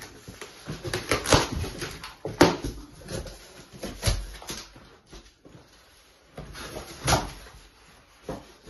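A large cardboard box being opened by hand: its flaps and sides are pulled back, with cardboard creasing and scraping and a series of sharp knocks and crackles. The loudest come in the first two and a half seconds and again about seven seconds in.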